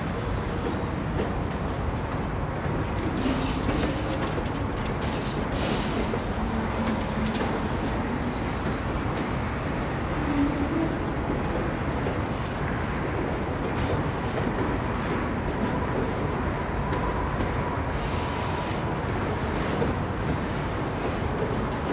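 Freight train autorack and tank cars rolling past: a steady noise of steel wheels on rail.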